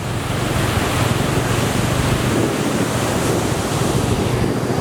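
Steady rushing of flowing stream water mixed with wind on the microphone, under the low, even drone of a scooter engine.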